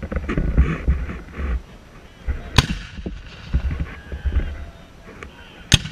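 Civil War field artillery cannons firing down the line: two sharp reports, one about two and a half seconds in and another near the end, with a few fainter cracks between.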